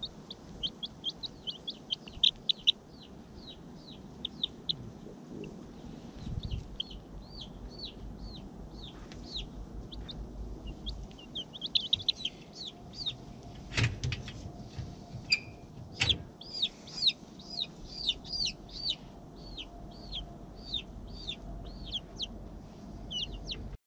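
Two-week-old Rhode Island Red chicks peeping: runs of short, high, downward-sliding peeps, several a second, with a lull of a few seconds about a quarter of the way in. Two sharp knocks about two seconds apart fall in the middle.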